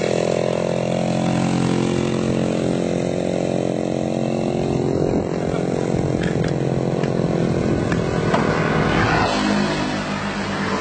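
Two-stroke chainsaw engine mounted on a bicycle, running at high revs: its pitch climbs over the first couple of seconds, holds steady, then drops to a lower speed near the end.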